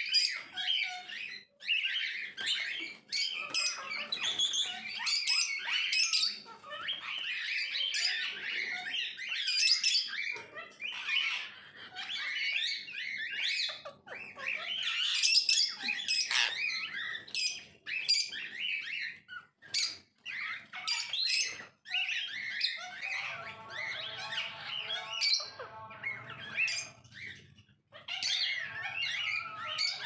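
Indian ringneck parakeets chattering in rapid, high chirps and squawks, with a few lower, drawn-out calls near the end.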